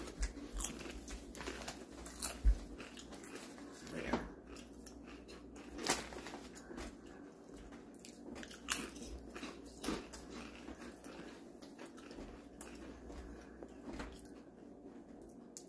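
Person biting into and chewing Lay's potato chips: a run of crisp, irregular crunches, with louder bites every second or two.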